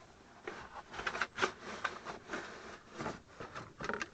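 Packaging and kit contents being handled as a tool kit is unpacked: irregular rustling with a dozen or so short clicks and knocks.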